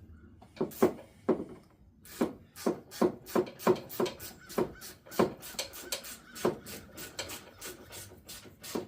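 Repeated short rasping strokes from hand-tool work on the mower, about two to three a second, starting about half a second in and running on nearly to the end.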